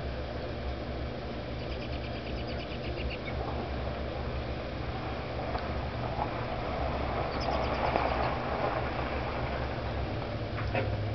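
Backyard outdoor ambience: a steady low hum of distant engine noise, with a short rapid bird trill about two seconds in and another about seven and a half seconds in, and a swell of rushing noise around eight seconds.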